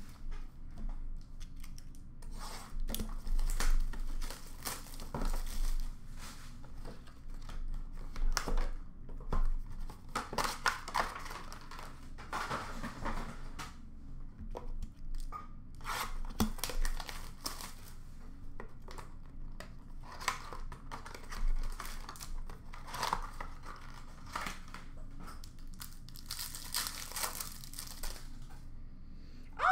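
Plastic-wrapped trading card packs being torn open and their wrappers crumpled by hand: irregular bursts of crinkling and ripping.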